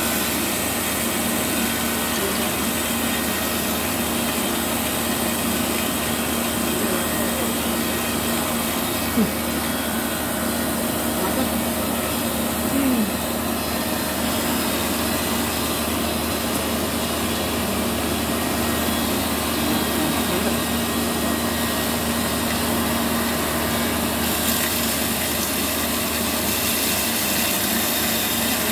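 Small coffee-processing machine running steadily: a constant motor hum under an even whirring, rushing noise, with a brief knock about nine seconds in.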